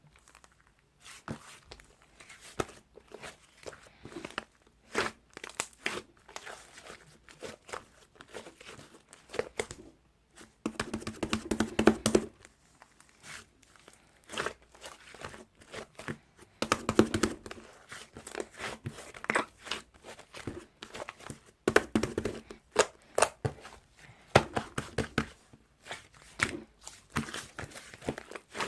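Stretchy cheddar-cheese slime being pulled, squeezed and folded by hand, giving a stream of sticky clicks, pops and tearing crackles. Thicker runs of crackling come about a third of the way in, just past the middle and again about three quarters through.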